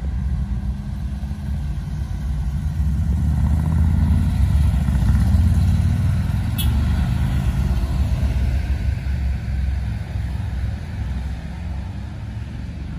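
Heavy road vehicles (big touring motorcycles, then a bus and a truck) passing on a mountain road: a deep engine rumble that builds to its loudest a few seconds in and eases off near the end. There is a short, sharp, high sound about six and a half seconds in.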